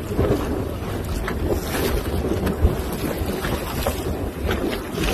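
Wind buffeting the microphone over the splash and wash of choppy sea water around a boat.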